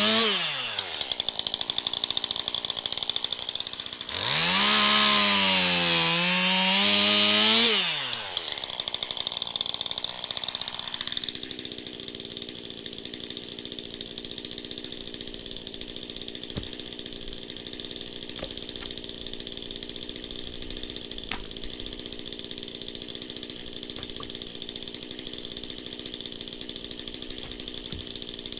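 A chainsaw speeds up to full speed, holds, and winds down twice: once right at the start and again from about four to eight seconds in. From about eleven seconds a quieter steady engine runs at idle.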